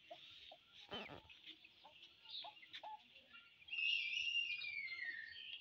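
Chickens and small birds chirping and calling, with a short knock about a second in and one long, high call that falls slightly in pitch near the end.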